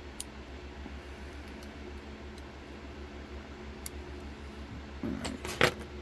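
Small metal parts of a disassembled GMX MX lock clicking as they are handled: a few faint clicks, then a quick run of louder clinks about five seconds in, over a steady low hum.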